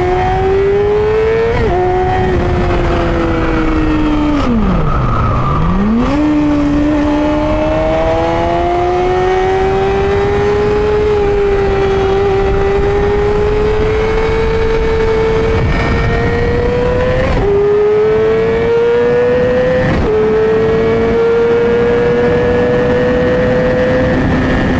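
2009 Yamaha R6's inline-four with a full Yoshimura exhaust, running hard at high revs. Its pitch climbs slowly and falls back sharply at several gear changes. Around five seconds in, the revs drop steeply and then pick up again.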